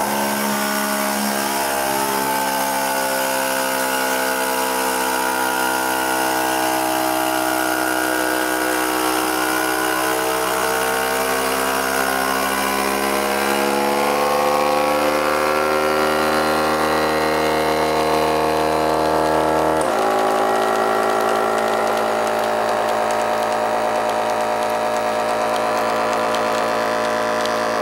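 Vacuum sealer's pump motor running steadily, drawing air out of a bag. It starts abruptly, its pitch drifts slowly as the vacuum builds, and it shifts suddenly about two-thirds of the way through.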